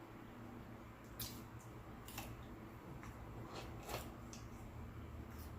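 Close-up chewing of crunchy fried food, with a few sharp crunches and mouth clicks at uneven intervals over a faint low hum.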